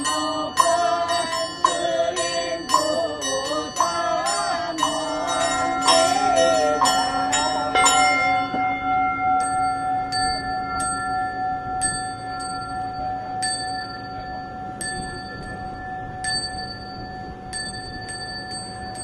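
Buddhist ritual bells with chanting: for about eight seconds, metal bells are struck quickly under chanting voices. Then the chanting stops, a bowl bell's long tone keeps ringing, and a small high bell is struck about once a second.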